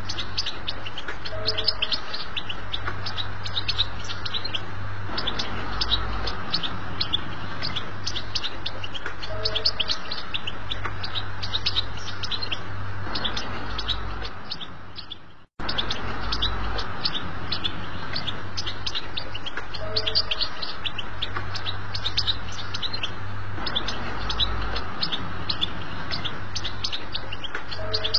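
European goldfinch singing, a rapid twittering run of high chirps used as a tutor song for young goldfinches. The song fades out about halfway through, breaks off for a moment and starts again, over a steady low hum.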